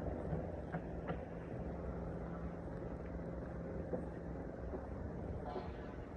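Outdoor street ambience with a vehicle engine running steadily in a low hum, and a few short knocks.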